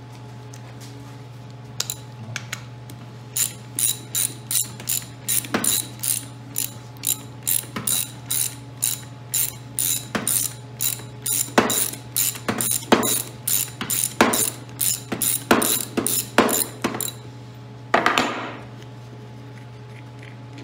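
Hand ratchet wrench clicking in repeated short strokes, about two clicks a second, loosening a bolt on an engine's sump cover. Near the end there is one longer rasp as the ratchet is swung in a fuller stroke or the bolt turns freely.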